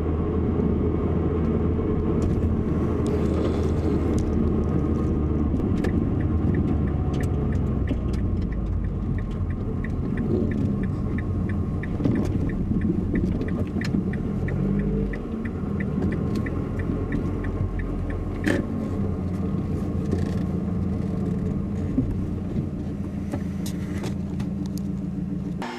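In-cabin sound of a 2007 Mazdaspeed3 with a 2.3-litre turbo four driving slowly on a rough road: a steady engine and road rumble. For about ten seconds in the middle there is a regular light ticking, about three ticks a second, and a few short sharp knocks come later on.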